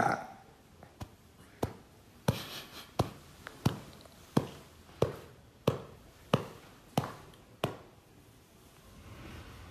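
A cupped hand patting a baby's back, about eleven pats at an even pace of roughly three every two seconds, then stopping near the end. This is back-patting to bring up the baby's wind after a feed.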